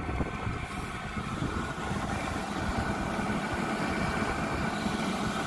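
A 12 V diesel air heater running, its combustion exhaust giving a steady low rumble with a faint steady whine above it.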